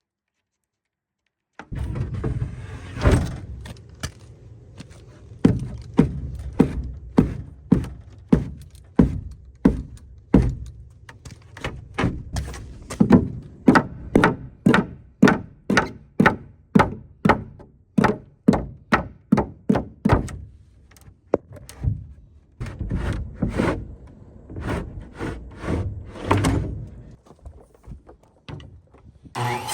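Hammer blows on wood, struck over and over at roughly two a second, with a couple of short pauses between runs.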